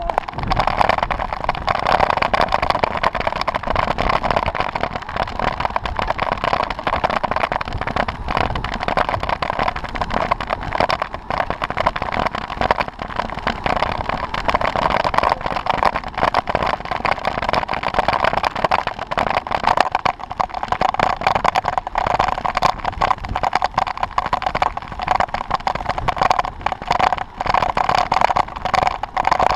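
Wind rushing over the microphone of a camera mounted on a road bike riding fast, with road noise from the tyres: a steady hiss with uneven buffeting.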